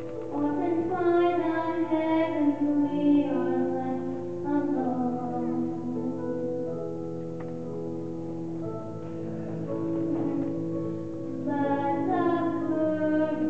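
A young girl singing a slow song into a microphone, with piano accompaniment holding steady notes beneath her voice.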